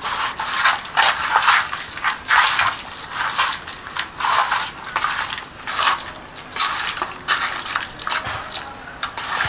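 A bare hand squeezing and kneading raw mutton with sliced onions and turmeric in a steel bowl: repeated wet squelching strokes, irregular, a little over one a second.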